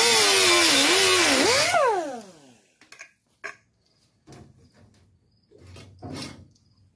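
Grinder with a thin cut-off disc cutting through the overlapped patch panel and cab-corner sheet metal, its pitch wavering under load as it finishes the double cut. About two seconds in it is let off and winds down with a falling pitch. A few light knocks follow.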